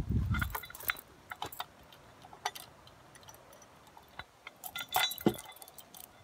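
Light metal chain clinking and jangling in short scattered bursts, densest about five seconds in, from the chain that hangs a steel shooting target from a wooden frame.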